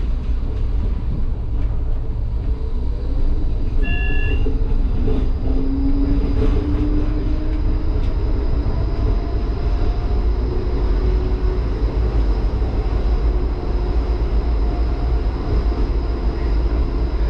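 HermeLijn tram running on street track, heard from inside the cab: a steady low rumble with a faint whine that glides slowly up and down in pitch. A short high beep sounds about four seconds in.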